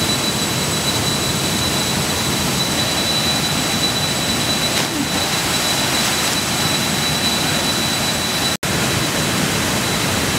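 Steady rushing of river rapids and a waterfall, with a brief drop-out about eight and a half seconds in.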